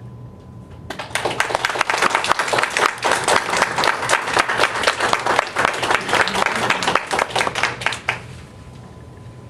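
Audience applauding, starting about a second in and stopping near the end, over a faint steady room hum.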